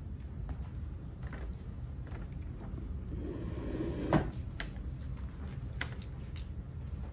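Soft clicks and small knocks from a child chewing a sour gummy candy and handling the plastic candy bag, with one louder knock about four seconds in, over a steady low rumble.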